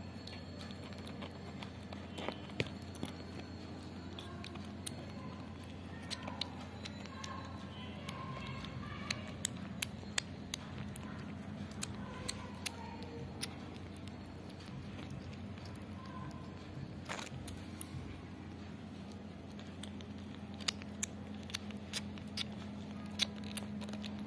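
A kitten suckling milk from a plastic bottle: scattered sharp clicks and crackles from the sucking and the plastic bottle under its paws, over a steady low hum.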